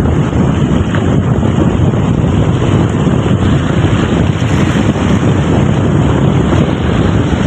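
Loud, steady wind noise on the microphone over the wash of small sea waves against rocks.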